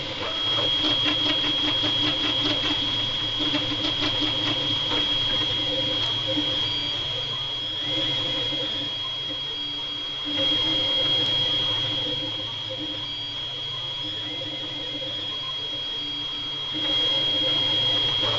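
FDM 3D printer running a print: stepper motors whirring and chattering as the print head makes quick short moves, over a steady high whine. The sound steps louder and softer several times as the moves change, with rapid fine ticking in the first half.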